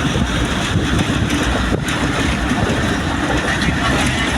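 Train running along the track: a steady, loud rumbling noise.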